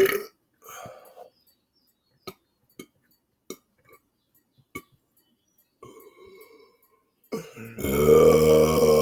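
A man belching on purpose. A loud burp trails off just after the start, a few faint short clicks follow, and a second long, loud burp begins about seven and a half seconds in and is still going at the end.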